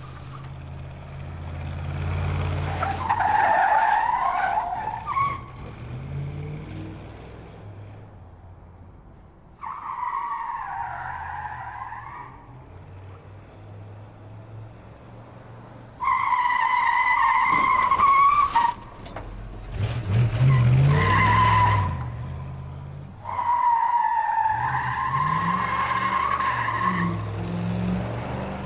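Car sound effects: tyres screeching in four or five drawn-out, wavering squeals over a steady low engine rumble.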